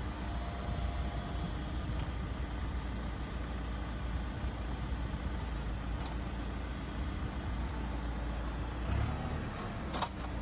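Tractor engine running steadily while the hydraulically driven steel wire brush of a tractor-mounted curb weeder scrapes along the asphalt. A sharp click or scrape comes near the end.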